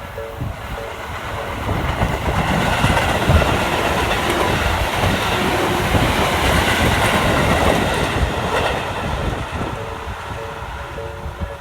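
A Tobu Noda Line train passing through a level crossing, loudest from about two to nine seconds in. The crossing's slow-tempo Nikko-type warning bell rings at the start, is drowned out by the train, and is heard again near the end.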